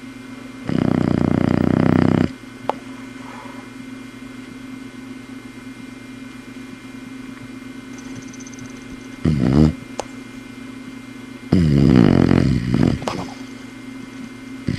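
Boxer dog snoring in its sleep: three snores, a long one about a second in, a short one around nine seconds and another long one around twelve seconds, with a steady low hum in between.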